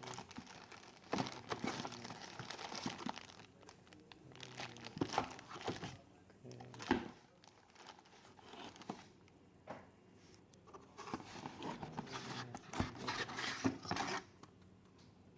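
Laptop packaging being handled and unwrapped by hand: repeated bursts of rustling and tearing with sharp clicks, each a second or two long, with short quiet pauses between them.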